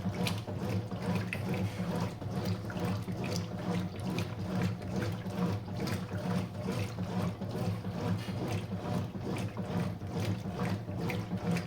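Consul 5 kg washing machine running: a steady motor hum with water sloshing and small mechanical clicks.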